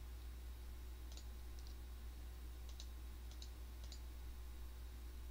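Faint, short clicks, about six of them and mostly in quick pairs, over a steady low hum.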